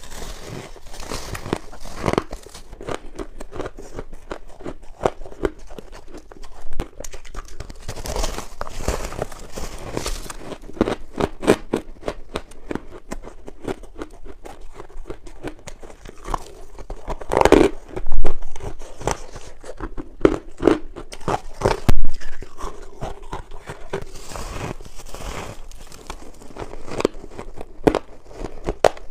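Powdery refrozen ice being bitten and chewed close to a clip-on microphone: a long run of squeaky, crunching bites and chews, loudest around the middle.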